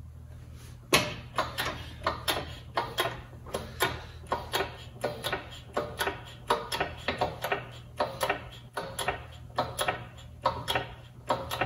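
Hand pump of a hydraulic shop press being worked in quick strokes, a steady run of clacks about three a second that starts about a second in, as the ram presses a new wheel-bearing race into a front hub.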